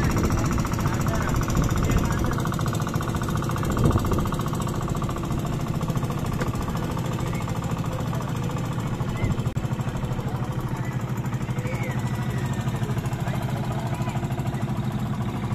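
Motorized outrigger boat's engine running steadily, a rapid, even pulsing, as the boat tows a floating raft restaurant on a rope.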